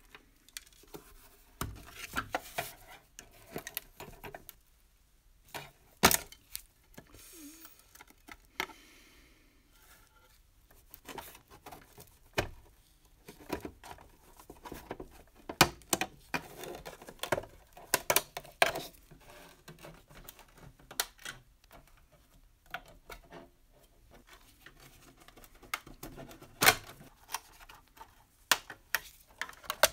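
Rusty sheet-metal parts of an antique JEP toy boat being handled and worked apart by gloved hands: irregular metal clicks, taps and scrapes, with a few sharper knocks as pieces are set down on the workbench.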